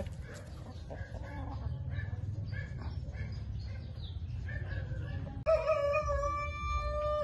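Brahma chickens clucking in short, soft calls, then, about five seconds in, one loud, long drawn-out call from a chicken.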